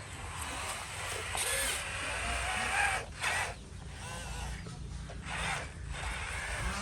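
Small electric gear motors of a radio-controlled toy construction machine whirring in short runs that start and stop.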